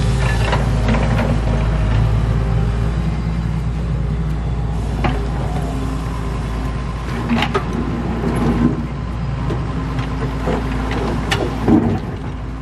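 Doosan hydraulic excavator's diesel engine running steadily as it digs, with several sharp knocks from about five seconds in, the loudest near the end.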